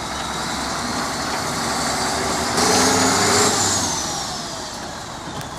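Caterpillar 966F wheel loader's diesel engine running, revving up about two and a half seconds in with a high whine that rises and then slowly falls as the engine eases back.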